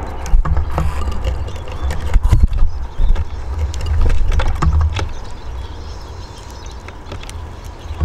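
Uneven low rumble of wind on the microphone that swells and fades, with scattered sharp clicks and taps of small birds pecking and hopping on a wooden bird table.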